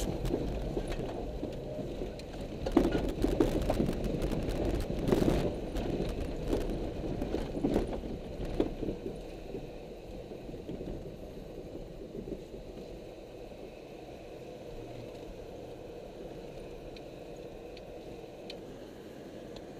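Heard from inside the cabin, a car is driven hard on a loose dirt rallycross course, its running mixed with knocks and clatter of dirt and gravel striking the body. About halfway through it eases off into a quieter, steady low-speed rumble.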